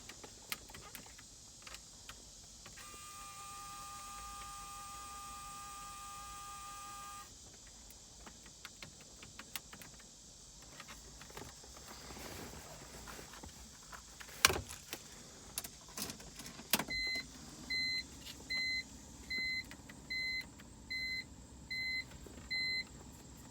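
Small clicks of plastic trim and parts being handled in a car interior. A steady electronic tone sounds for about four seconds, a sharp click comes about midway, and near the end there is a run of eight even, sharp beeps, roughly one every 0.8 s.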